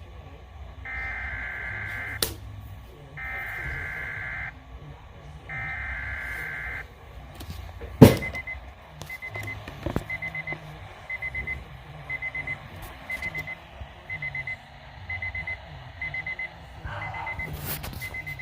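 Three bursts of SAME digital alert header from a Weatheradio Canada broadcast, each a harsh warbling data screech about a second long with a second's gap. Then a sharp loud click, and an alarm beeping in quick short groups roughly once a second.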